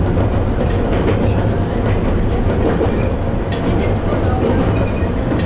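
Toyama Chiho Railway Tateyama Line train running along the track: a steady low rumble with occasional faint wheel clicks.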